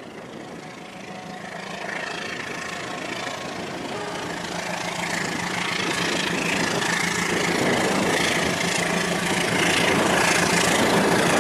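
Battery-powered toy train running along plastic track: a steady motor hum that grows louder as the train approaches.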